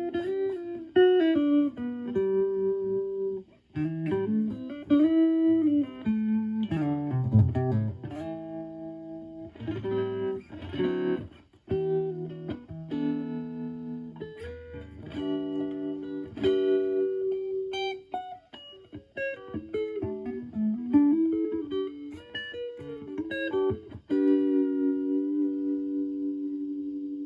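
Electric guitar (Stratocaster HSH) through a Joyo JF-09 analog optical tremolo pedal and a Marshall Valvestate on its clean channel, with the tremolo at intensity 12 and rate 2, playing single-note lines with string bends. About 24 seconds in, a chord rings out and fades, its volume pulsing steadily from the tremolo.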